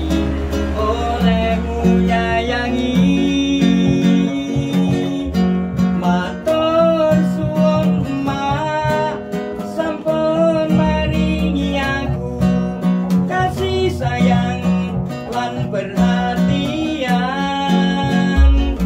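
A man singing while he plays an acoustic guitar.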